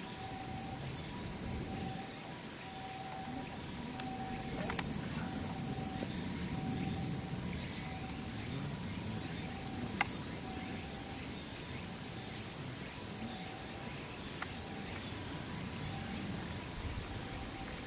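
Steady high-pitched insect chorus droning, with a faint mid-pitched tone pulsing about once a second and a few sharp clicks, the loudest about ten seconds in.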